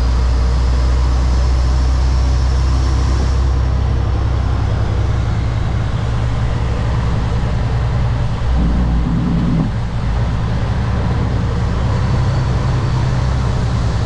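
Kenworth W900 semi truck's diesel engine running steadily under way, with road noise, heard from the cab. The engine note shifts briefly about eight and a half seconds in, then settles again.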